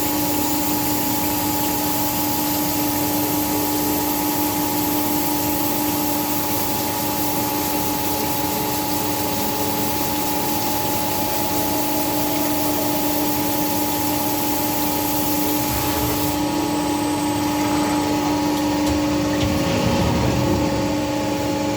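Angular-head CNC cylindrical grinding machine running: a steady machine hum with a broad hiss over it. The highest part of the hiss drops away about sixteen seconds in, while the hum carries on.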